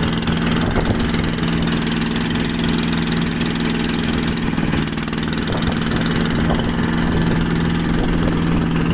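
Engine of a wooden longtail fishing boat running steadily under way, a constant low drone, over the rush of water along the hull.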